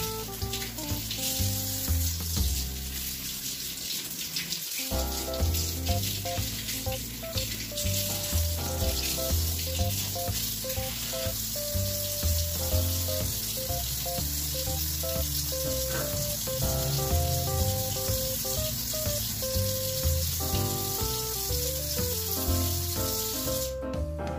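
Water running from a sink tap over hands being washed: a steady splashing hiss that stops abruptly near the end as the tap is turned off. Background instrumental music plays alongside.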